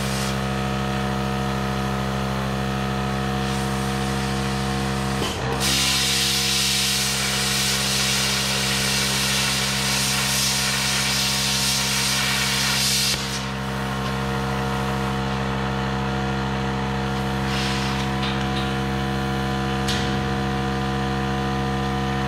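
Hypertherm Powermax30 AIR plasma cutter with its built-in air compressor running as a steady hum throughout. About five seconds in, the arc strikes and cuts steel sheet with a loud hiss for about eight seconds, then stops while the hum carries on.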